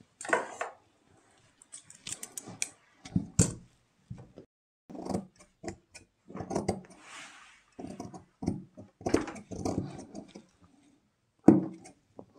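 Large steel tailor's shears cutting through dress fabric along a back neckline: a string of short, irregular snips as the blades close through the cloth.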